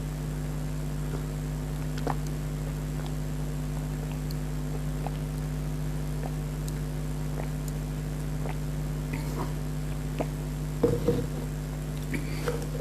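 Small wet mouth sounds of eating ripe mango close to the microphone: scattered soft smacks and squelches over a steady low hum, with a louder wet burst about eleven seconds in.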